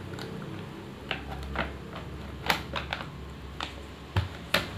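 Hard plastic clicking and knocking as an emergency lantern's plastic housing is fitted back together, the base cover and clear tube pushed into place. About eight or nine sharp clicks come at uneven intervals, loudest about halfway through and again near the end.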